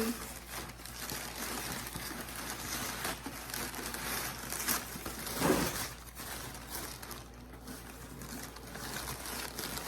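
Packing material rustling and crinkling as hands dig through a shipping box to unpack it, in irregular bursts with a louder crunch about five and a half seconds in.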